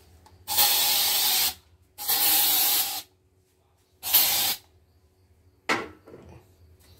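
Mosquito spray hissing out in three bursts, the first two about a second each and the last about half a second, followed by a short knock near the end.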